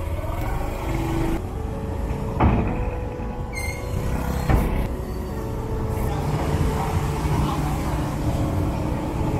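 A vehicle on the move: a steady low rumble of engine and road noise, with two sharp knocks about two and a half and four and a half seconds in.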